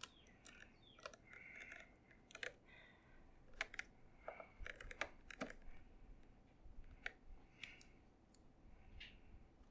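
Faint, irregular clicks and light scraping of a small screwdriver driving the side screws into the metal casing of an iRiver iHP-120 MP3 player, along with handling of the player.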